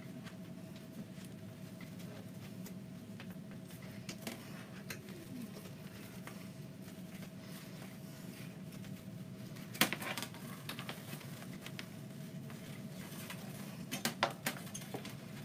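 Faint rustling, scraping and light clicks from handling a wired ribbon bow and securing the wire through holes in a wooden sign, over a steady faint hum. There is a sharper click about ten seconds in and a few quick ones near the end.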